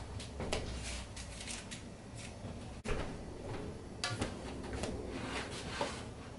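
Scattered light clicks and knocks from hands handling food and dishes at a kitchen counter: a shaped potato set on a metal baking tray and mashed potato worked in a bowl. There is a sharper knock about three seconds in.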